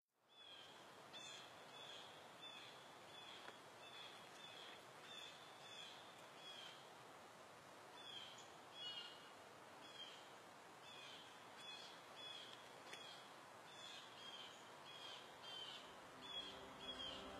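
Faint outdoor ambience: a bird repeats a short high call, about one or two a second, over a steady soft hiss.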